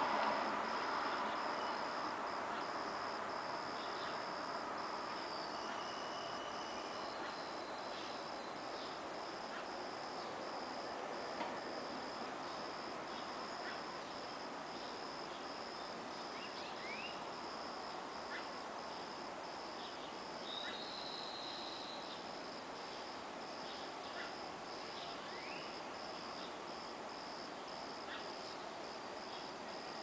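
Crickets chirping steadily in an even, high-pitched pulse, with scattered short bird chirps. A broad rumble of passing traffic fades away over the first several seconds.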